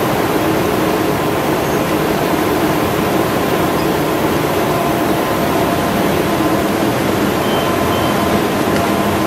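RYOBI 758P eight-colour UV sheetfed offset press running at steady speed: a loud, unchanging mechanical rush with a faint steady hum.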